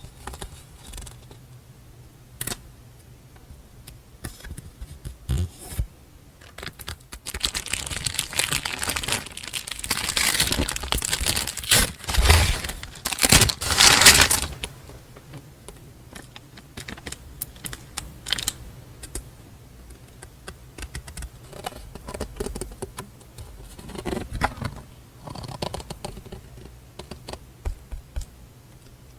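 Stationery being unpacked and handled by hand: scattered light taps and clicks, then several seconds of dense rustling and crinkling of paper wrapping, loudest about twelve to fourteen seconds in, then a few scattered taps and rustles.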